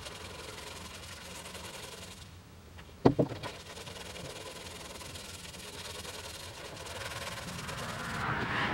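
Hand sanding with 1000-grit paper over Feather Fill G2 primer on a steel truck cab: a steady rubbing hiss. A single sharp knock rings briefly a little after three seconds in.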